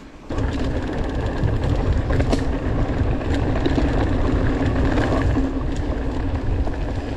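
Mountain bike (Orbea Occam) riding fast down a dirt forest trail: tyres rolling over the dirt with scattered clicks and rattles from the bike, under a heavy rumble of wind on the microphone. The noise starts suddenly about a third of a second in and then runs steady.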